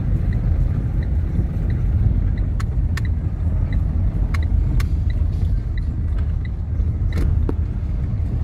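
Inside a car's cabin while driving slowly over cobblestones: a steady low rumble of engine and tyres on the stone. A faint regular ticking runs under it, about one and a half ticks a second, and a few sharp clicks and rattles break in.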